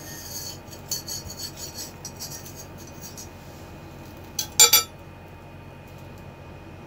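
Steel spoon scraping under a cooked vellappam in a black wok-style cheenachatti, with light rubbing and rattling, then a loud double clink of the spoon against the pan about four and a half seconds in as the appam is lifted out.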